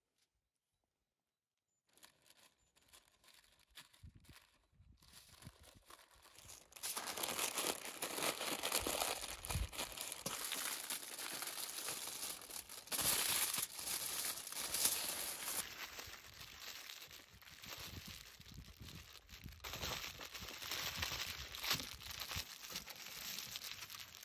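Aluminium foil crinkling and rustling as hands fold, wrap and press it tightly around a meatloaf, starting about two seconds in and getting louder and busier from about seven seconds in.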